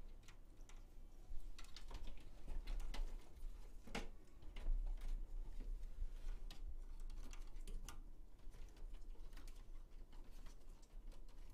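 Scattered light clicks, taps and rustles of hands feeding a power cable through a PC case, with a louder knock about four seconds in.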